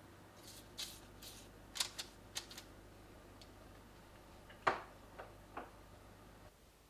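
Small household handling sounds: a run of light clicks and taps, then a louder knock with a short ring, followed by two softer knocks. A low steady hum underneath cuts off shortly before the end.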